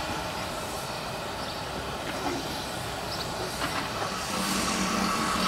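Steam locomotive working in the distance amid open-air station noise, with a few faint clicks. A steady low hum with a higher tone over it comes in about four seconds in.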